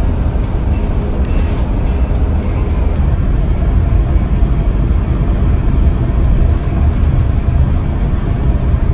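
Motorhome cruising at highway speed, heard from inside the cab: a loud, steady low rumble of engine, tyres and wind.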